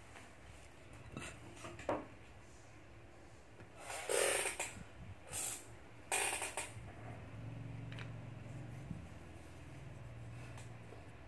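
Handling noise: a couple of light clicks, then three short rustles close to the microphone near the middle, over a faint low hum.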